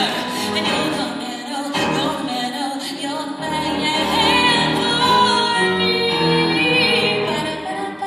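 A woman singing a song into a microphone, accompanied by a grand piano, live.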